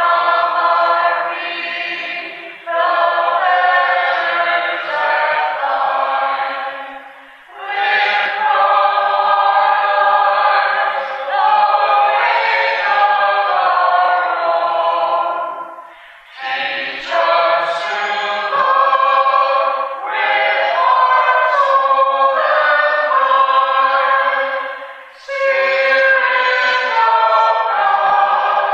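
A congregation of mixed voices singing a hymn together, in long phrases with brief breaths between lines.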